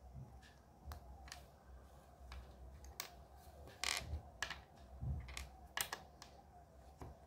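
Small plastic Lego pieces clicking and tapping as they are handled and pressed together: irregular sharp clicks, a second or so apart.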